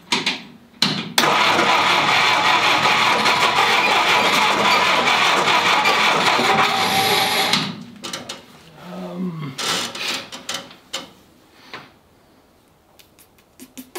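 Willys CJ2A's four-cylinder L-134 "Go-Devil" flathead engine cranking over on the starter, loud and steady for about six seconds, then stopping. It is a first start attempt after five years in storage, and the engine does not keep running.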